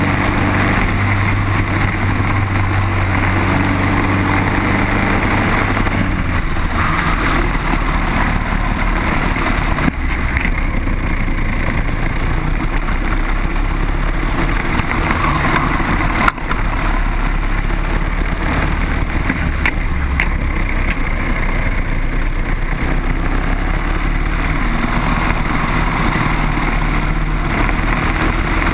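Briggs & Stratton kart engine running hard through a lap, heard onboard, its note dropping and rising as the kart slows for corners and accelerates out. Two brief knocks cut through, about ten and sixteen seconds in.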